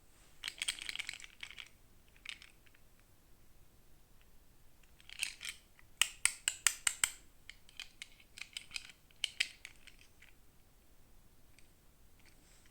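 Hands handling plastic toy packaging: a short burst of crinkling and rustling, then a quick run of about eight sharp plastic clicks, followed by more scattered clicks and rustles.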